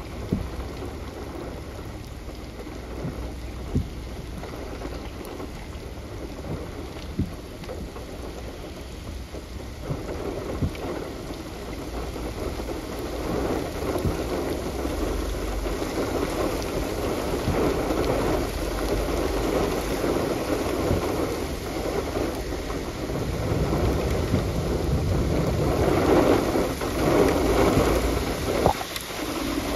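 Heavy rain in a thunderstorm, with individual drops ticking sharply on a surface. The downpour grows heavier and louder from about a third of the way in, and low rumbles of thunder come near the start and again near the end.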